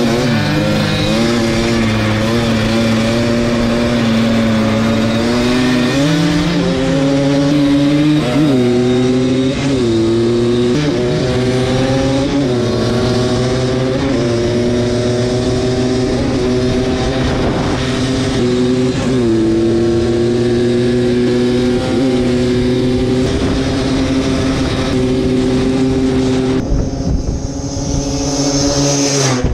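Vintage single-cylinder two-stroke ATV engines of a Yamaha Blaster and a Kawasaki Tecate 4 at full throttle in a drag race. The engine pitch climbs and drops back at each upshift, over and over. Near the end the engine sound turns thinner and more distant.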